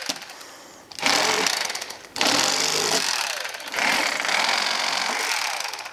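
Electric fillet knife running, its motor buzzing as the blades saw through a crappie, switched on and off in several bursts of a second or two with short breaks between.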